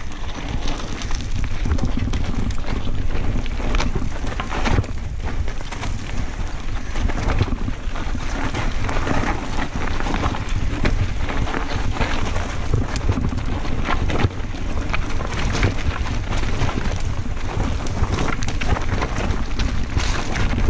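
Wind buffeting the camera microphone during a fast mountain-bike descent, with the tyres of a Santa Cruz Blur cross-country bike crunching over loose rock and the bike knocking and rattling over the bumps throughout.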